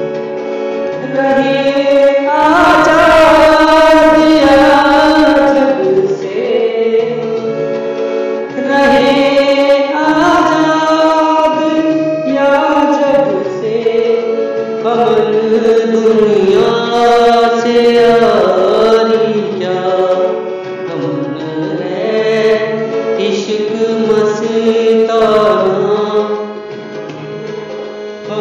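Devotional chant-style singing in phrases of a few seconds, over a steady drone with instrumental accompaniment.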